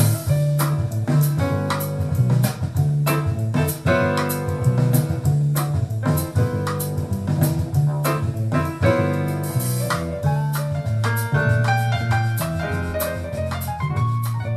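Jazz piano trio playing from a vinyl record through a pair of Denon SC-7.5 bookshelf speakers: piano over steady, prominent bass notes, with drums and cymbals striking throughout.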